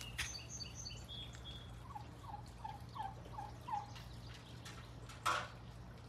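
White domestic turkeys calling: a run of about six short, falling notes a little after two seconds in, with faint high chirps at the start and one brief, louder burst a little after five seconds.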